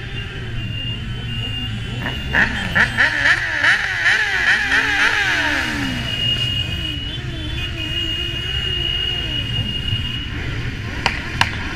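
A group of motorcycles running with a steady low engine rumble, several being revved up and down over and over. A loud, high, pulsing stretch comes about two to six seconds in, then a steady high tone.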